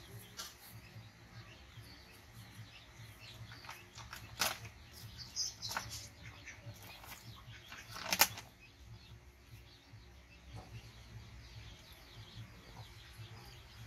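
Quiet farmyard ambience: small birds chirping and chickens in the background, with scattered soft rustles and clicks of food being handled. Two brief, louder sharp sounds stand out, about four and a half seconds in and, loudest, about eight seconds in.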